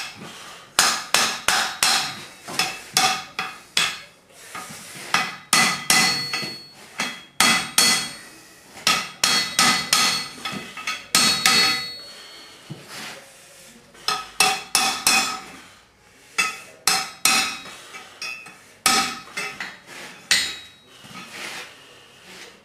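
Blacksmith's hand hammer striking hot flat steel bar on an anvil. The blows come in runs of about three a second with short pauses between, and each strike rings.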